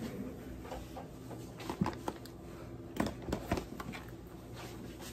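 A few light knocks and clicks of stacked plastic food-storage containers being lifted and handled, over a low steady hum.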